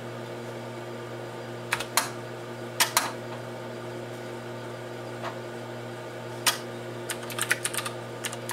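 Computer keyboard keystrokes in short runs, a few about two seconds in and a quicker run near the end, over a steady electrical hum.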